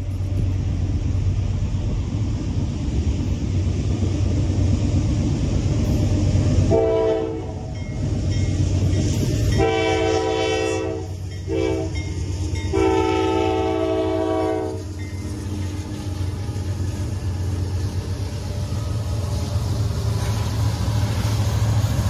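Norfolk Southern freight train approaching and passing a grade crossing, led by remanufactured GE AC44C6M diesel locomotives. The engines make a steady low rumble, and the horn sounds the standard grade-crossing signal, long, long, short, long, from about seven to fifteen seconds in.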